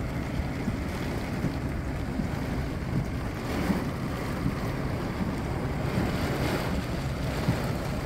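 Storm wind buffeting a phone's microphone from the window of a slowly moving car: a steady low rumble with small gusts.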